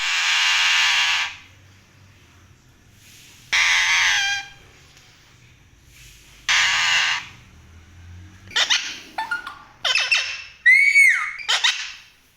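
Pet parrot squawking: three long harsh screeches about three seconds apart, then a quicker run of shorter calls and whistles that glide up and down in pitch.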